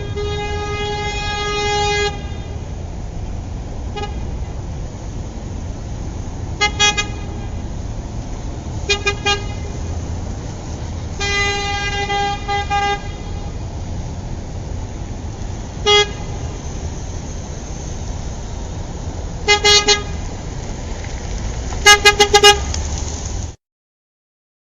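Car horn honking over steady traffic rumble: a long blast, scattered short toots and double toots, a second long blast, and a quick run of toots near the end. The sound then cuts off abruptly to silence.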